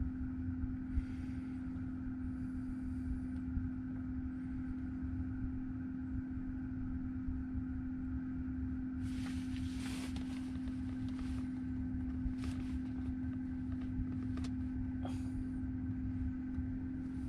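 A steady mechanical hum, one constant tone over a low uneven rumble. A few brief rustles and clicks come around the middle.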